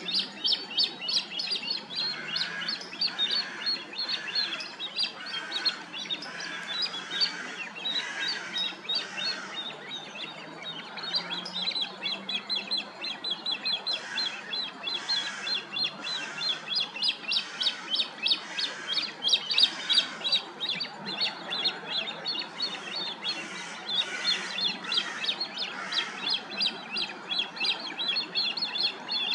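Early-morning chorus of many songbirds chirping and singing at once, a dense, continuous stream of high, rapid notes.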